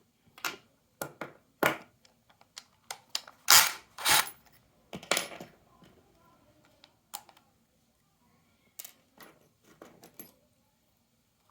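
Irregular sharp clicks and knocks of small hard objects being handled, with the loudest pair about halfway through; no motor running.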